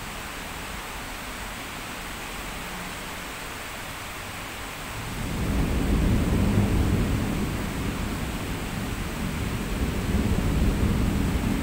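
Heavy rain falling in a steady hiss, heard through a window pane. About five seconds in, a long, low rumble of thunder builds and rolls on, swelling twice.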